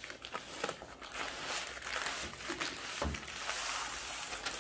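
Brown kraft packing paper crinkling and rustling as a paper-wrapped blade is slid out of a long cardboard box, with the cardboard flaps scraping and a soft knock about three seconds in.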